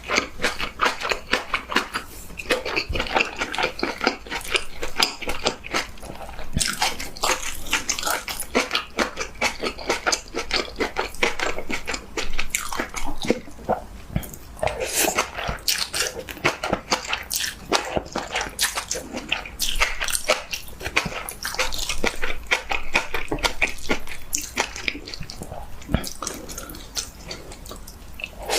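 Close-miked eating of kimchi stew and fried vermicelli: wet chewing, smacking and slurping, with dense, irregular small clicks throughout.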